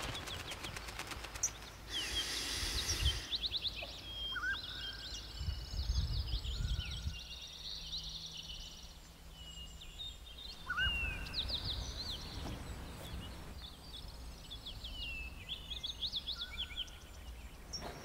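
Small birds chirping and singing: many short calls with quick rising and falling pitch, over a low rumbling background. A brief rushing hiss about two seconds in.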